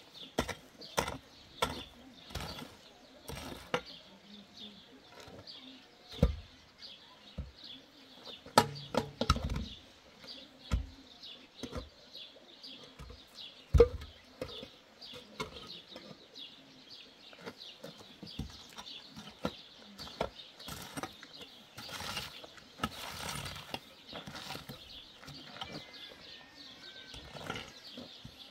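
Irregular strikes of a mattock digging into hard, stony earth, with heavy hollow concrete blocks set down with dull thumps, the loudest of them about a third of the way in and again about halfway. Birds chirp in the background.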